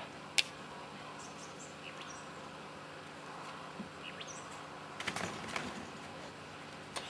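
Quiet backyard ambience with a faint steady hum and a few short, high bird chirps. A single sharp click comes about half a second in, and a brief cluster of knocks about five seconds in.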